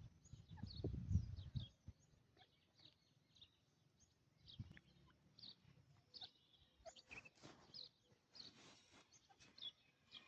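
Faint, scattered short bird chirps, high-pitched and irregular, over near-quiet outdoor background. Low rumbling thumps in the first two seconds.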